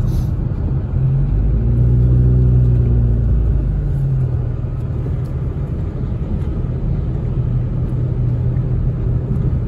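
Road noise inside a moving car on a wet road: a steady low rumble of tyres and engine. A deeper, pitched engine hum swells and fades between about two and four seconds in.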